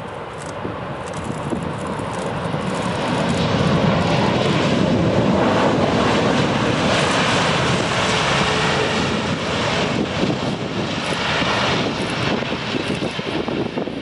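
Jet engine noise from an Airbus A380's four Rolls-Royce Trent 900 engines as the airliner rolls out along the runway after touchdown. It grows louder over the first four seconds, holds steady, then eases off near the end.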